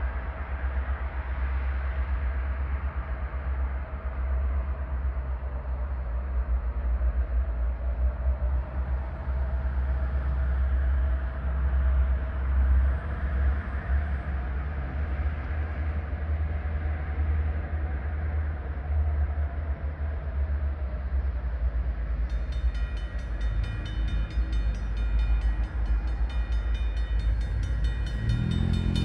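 Diesel locomotives of a freight train, an EMD GP38-2 leading two GP60s, approach and pass close by with a deep, steady engine rumble. About three-quarters of the way through, a high ringing sound with many overtones joins in.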